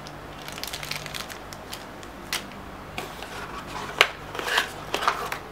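Small plastic zip bag of metal fittings crinkling and rustling in the hands, with clicks and knocks as the hands work inside a cardboard box. A sharp knock about four seconds in is the loudest sound, followed by a short burst of rustling.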